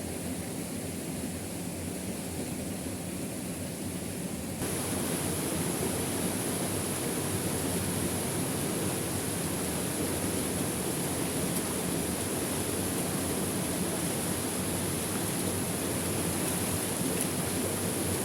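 Steady rushing of a waterfall, which steps up louder and brighter about four and a half seconds in.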